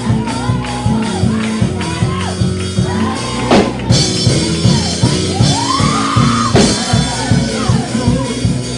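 Live gospel praise-break music from a church band: drums keep a quick, steady beat under held notes, with voices shouting and singing over it.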